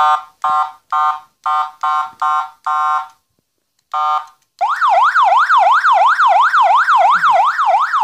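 Six-mode electronic police siren for a motorcycle, sounding through its small horn speaker with the volume turned down: a run of short horn-like blasts about two a second, a brief gap and one more blast, then a fast yelp that sweeps up and down about three times a second.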